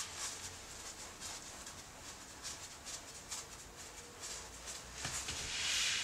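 A wide paintbrush working a coat onto a linen canvas: many short, irregular swishes of bristles on the linen, then a longer, louder sweep near the end.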